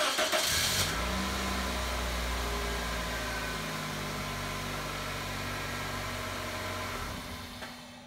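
Pontiac Vibe's four-cylinder engine starting at once: a brief burst of cranking that catches within about a second, the revs rising and settling into a steady idle, then the engine switched off near the end. A quick, clean start of the kind a strong, healthy battery gives.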